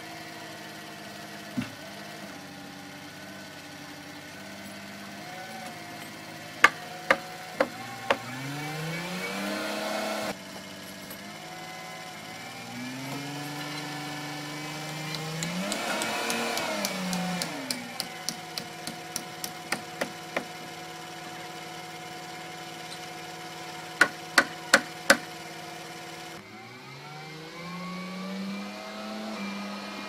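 A machine engine revving up and down several times, with sharp hammer blows on timber: four loud strikes about half a second apart, a quicker run of lighter strikes, then four more loud strikes.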